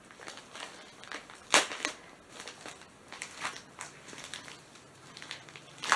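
Packaging being handled and unwrapped: irregular crinkling and crackling of wrapping, with louder rustles about a second and a half in and again near the end.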